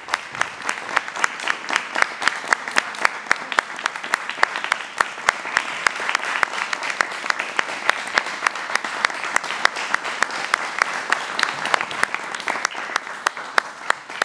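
Theatre audience applauding, with one clapper close by beating about three sharp claps a second over the steady clapping of the crowd.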